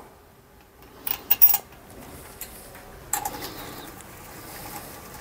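A few light metallic clinks of a hand tool and bolt against the Kawasaki ZX130's aluminium crankcase while a crankcase bolt is fitted: a quick cluster about a second in and one more near three seconds.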